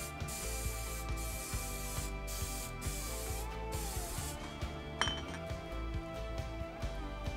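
Cooking oil spray can hissing in several short bursts over the first four seconds or so, over background music. A sharp click about five seconds in.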